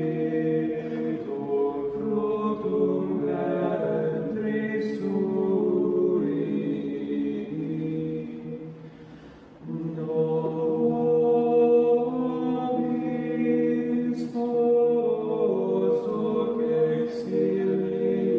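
A group of voices singing a slow, chant-like religious hymn on long held notes. The singing fades away about eight seconds in, then starts again abruptly a second or so later.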